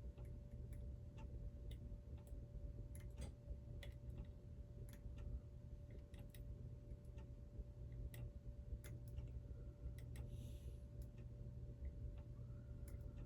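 Faint, irregular light metallic clicks and taps, about two a second: a small metal stir stick tapping the paint bottle and the airbrush's paint cup while dabbing paint across. A steady faint hum runs underneath.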